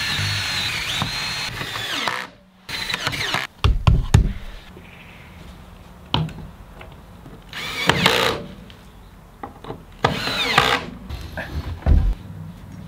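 A power tool working old plywood, run in several short bursts; one near the end winds down in pitch. Sharp knocks from the wood being handled come between the bursts.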